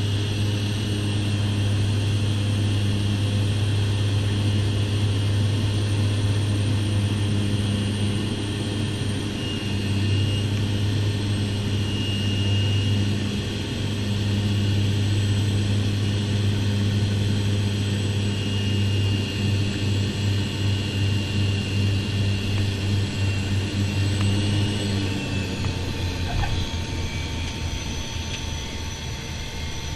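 Inside an Embraer airliner's cockpit: steady engine hum and airflow noise with high engine whines. About 25 seconds in, a whine drops away as power comes back. A brief thump about 26 seconds in marks the touchdown.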